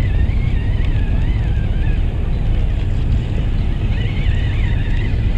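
Wind buffeting the microphone over the steady rumble of a boat at sea, while a baitcasting reel is cranked, giving a thin wavering whine that comes and goes twice.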